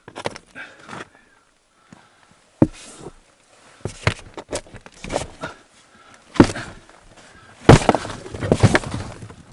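Rotten wooden boards being handled and pulled loose, knocking and cracking in separate sharp knocks, with a denser, louder clatter of cracking wood near the end.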